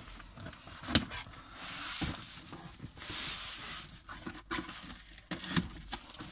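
Cardboard shipping boxes being opened by hand: scissors cutting through packing tape, with a sharp click about a second in. Then the cardboard flaps scrape and rustle as they are pulled open, with two longer scratchy rushes near 2 s and from 3 to 4 s.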